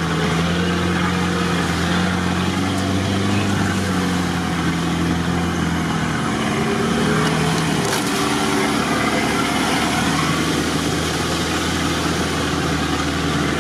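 An off-road 4x4's engine running under load, heard from inside the cab as it drives through a flooded, muddy track, with a steady wash of water and tyre noise. The engine note shifts about six seconds in.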